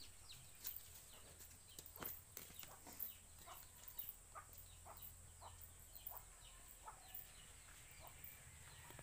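Faint clucking of domestic chickens, short calls repeating a few times a second.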